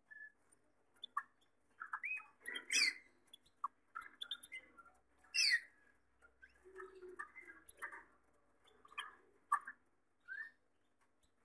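Gloster canaries chirping and calling in short, scattered notes, with two louder, sharper chirps about three and five and a half seconds in.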